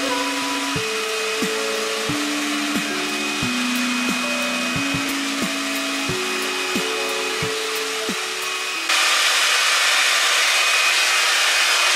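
BaByliss AS962E hot air brush blowing steadily with a thin motor whine, under background music of plucked notes. About nine seconds in the music stops and the brush's blowing is heard louder on its own.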